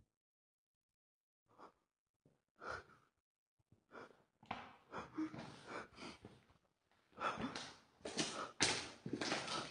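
Faint, irregular scuffs of slow footsteps on a gritty concrete floor, mixed with breathing. They begin about a second and a half in and come closer together toward the end.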